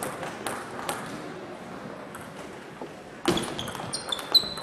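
Table tennis ball clicking on bats and table: a couple of light taps in the first second, then a loud sharp hit a little over three seconds in as a rally starts, with quick clicks after it. Short high squeaks, likely shoes on the wooden hall floor, come near the end.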